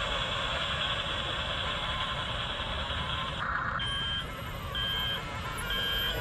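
Double E 579 remote-control bulldozer running, a steady whirring of its drive and tracks. About three and a half seconds in, the whirring breaks off and the toy's reversing beeper starts, beeping about once a second, three times, as it backs up.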